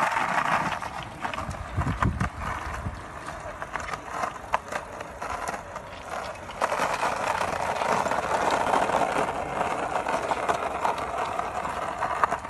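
Skateboard wheels rolling over rough pavement: a steady rolling noise with scattered small clicks, which grows louder about six and a half seconds in.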